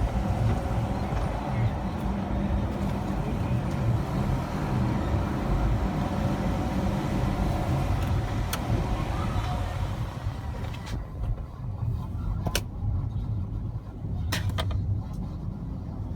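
Car cabin noise while driving: a steady low rumble of road and engine. A faint broadcast voice from the car's radio runs through the first two thirds and drops out, leaving the rumble and a few sharp clicks.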